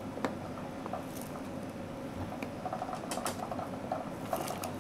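Faint scattered ticks and scraping of fingers pressing a DDR2 RAM stick down into its motherboard slot, working the second side in.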